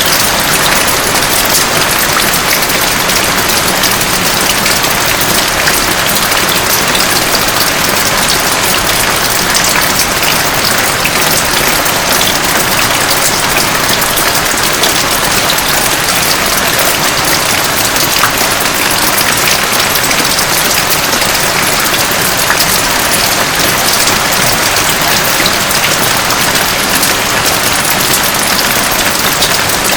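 Heavy rain falling steadily: a loud, dense, even hiss peppered with the fine patter of countless drops.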